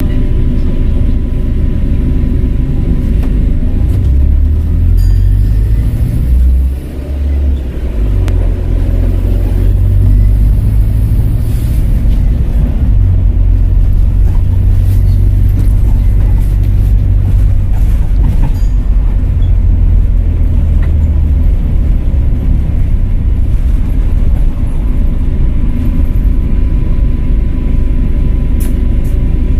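Volvo B5LH diesel-electric hybrid bus's engine running under way: a heavy low rumble with a thin steady whistle from the turbocharger above it. The rumble briefly drops about seven seconds in.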